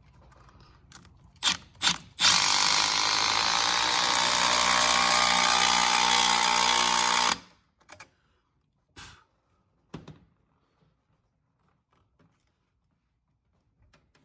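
Cordless drill with a socket on it runs steadily for about five seconds, from about two seconds in, driving down the bolt of a T-bolt hose clamp. A couple of short clicks come just before it starts, and a few light knocks of the tool being handled follow after it stops.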